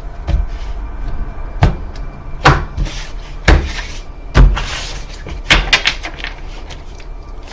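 A tarot deck being shuffled and knocked against a tabletop: a series of sharp taps and knocks roughly a second apart, with card rustling between them.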